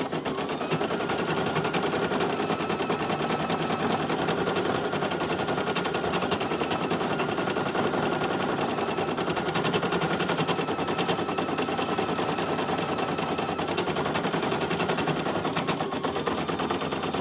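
Brother PE800 single-needle embroidery machine stitching steadily at speed: a fast, even needle rattle over a faint motor whine.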